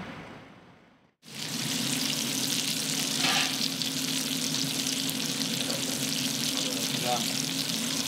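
Oil sizzling and crackling steadily in a frying pan around a crosshatch-scored fillet, starting abruptly about a second in, with a steady low hum beneath.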